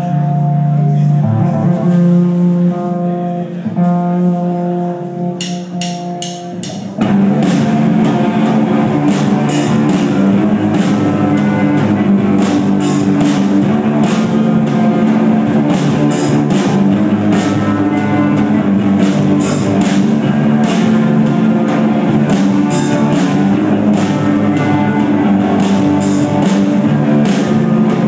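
Live rock band playing on stage: a sparse riff of steady notes opens, and about seven seconds in the drums and full band come in loudly, with a steady beat of cymbal and snare hits.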